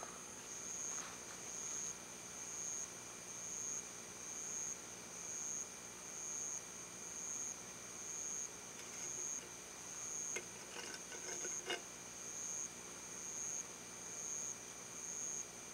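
Night insects chirping in a high, even pulse about once a second, with a few faint clicks in the middle.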